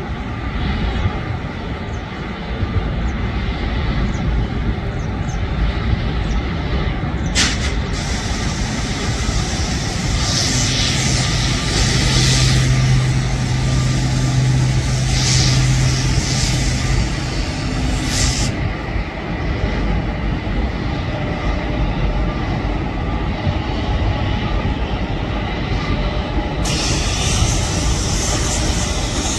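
Train hauled by twin WCAG-1 electric locomotives crossing a steel girder bridge: a steady rumble of wheels on the bridge, with a low hum that swells for several seconds around the middle and a couple of sharp clicks.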